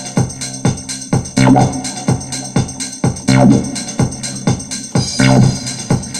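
Electronic dance music with a steady drum-machine beat, about two to three beats a second, and a low synth chord that comes round about every two seconds.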